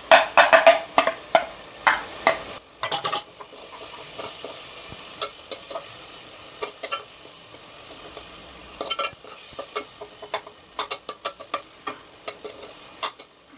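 A steel spoon stirs thick tomato-onion masala in a nonstick pan, mixing in freshly added ground spices. It makes quick clicks and scrapes against the pan over a low sizzle. The strokes come thick in the first few seconds, thin out, then pick up again near the end.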